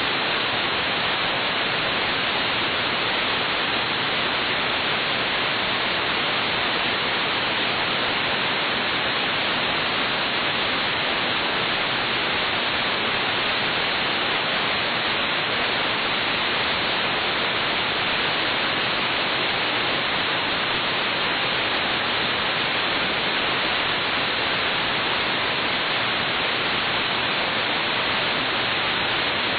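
Steady, unbroken hiss of aviation radio static in the gap between air traffic control transmissions.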